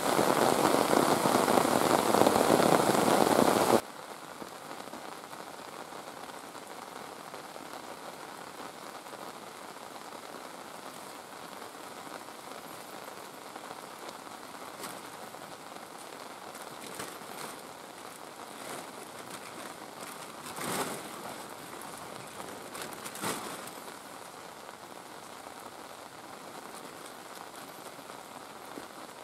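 Heavy rain pouring down on forest foliage, cutting off abruptly about four seconds in to a much quieter steady patter of rain. Later come a couple of short rustles.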